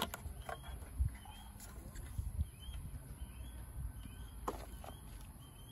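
A few sharp clicks and taps of hands handling the plastic wiring compartment and cable of an EV charging station: one near the start, one about a second in and a pair about four and a half seconds in.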